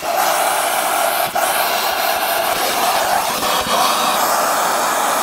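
Vacuum cleaner running steadily with a rushing hiss as its nozzle sucks up dust from car interior trim; the sound dips briefly twice.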